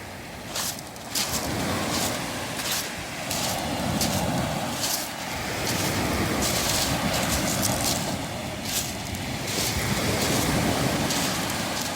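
Waves washing in and out over a beach of round pebbles, swelling and ebbing every few seconds, with the crunch of footsteps on the pebbles about twice a second.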